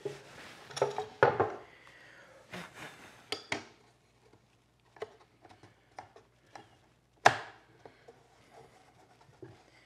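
Hand plane and a wooden cleat being worked and handled on the bench: a few short strokes about a second in, then scattered sharp wooden knocks and taps, the loudest a little past seven seconds in.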